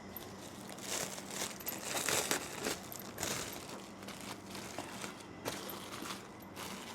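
Crinkly wrapping being handled, with irregular rustles and crackles, as a dessert tray is covered up.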